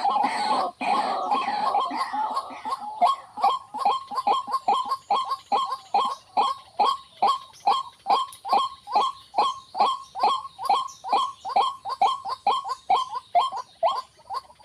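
White-breasted waterhen (ruak-ruak) calling: a run-together stream of calls for about the first three seconds, then a long even series of single notes, each dropping in pitch, about three a second.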